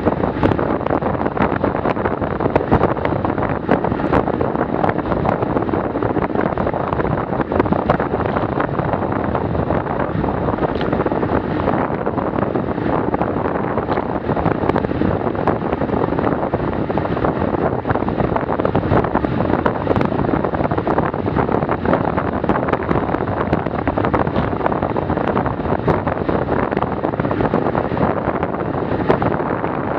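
Steady wind noise buffeting the microphone of a bike-mounted action camera on a road bike at about 40 km/h, mixed with tyre and road noise and scattered small ticks and rattles.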